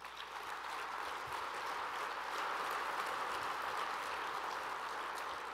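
Audience applauding in a large hall, building over the first couple of seconds and tapering off near the end.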